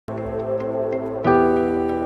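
Background music: soft sustained chords, a new chord coming in about a second in.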